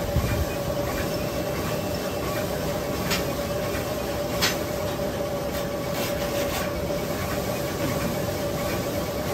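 Steady machine hum with a constant whine, broken by a few sharp crinkles and knocks as a large roll of plastic bubble wrap is handled and a metal shaft is pushed through its core.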